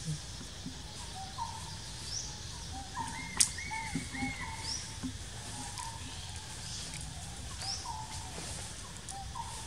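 Forest ambience of birds calling: short repeated notes about once a second and thin upswept high chirps. A single sharp click about a third of the way in stands out above them, over a steady low background rumble.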